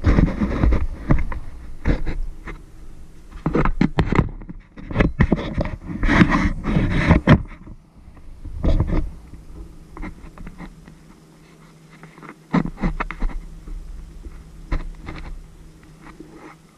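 Close-up handling noise from a camera being adjusted on its mount by hand: irregular rubbing, knocking and clicking, densest in the first half and sparser later. A low steady hum sits under the later, quieter part.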